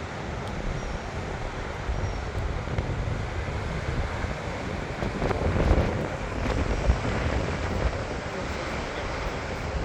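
Strong wind buffeting the microphone in a steady low rumble, swelling into a stronger gust about halfway through.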